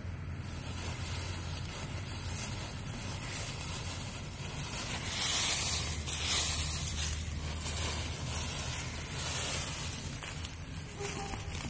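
Dry fallen leaves crackling and rustling as a mini corgi puppy bounds and burrows through a leaf pile, loudest about five to seven seconds in.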